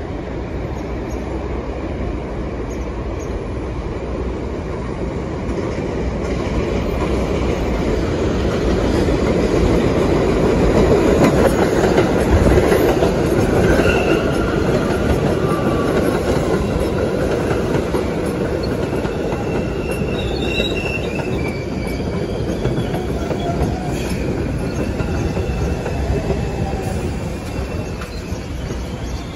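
R62A New York City Subway train running in on elevated track: a steady rumble of steel wheels that grows loudest as the cars pass close by about halfway through. As it slows for the station, thin high-pitched wheel and brake squeals join in.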